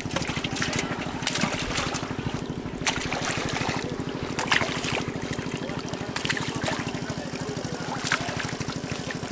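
A small engine running steadily with a rapid, even beat. Over it come irregular splashes and trickling water from fish thrashing in the shallow netted water.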